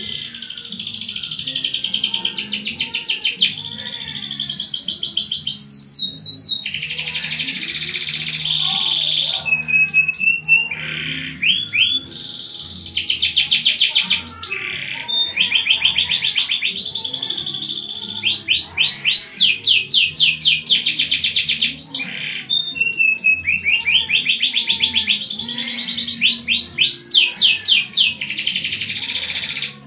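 Domestic canary singing long, fast rolls and trills, phrase after phrase with brief pauses between.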